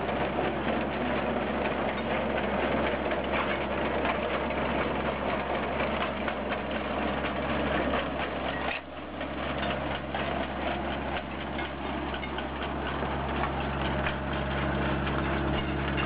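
A tractor engine running steadily while a tractor-mounted potato digger's rod-chain elevator rattles and clatters as it lifts soil and potatoes. The sound drops briefly about nine seconds in.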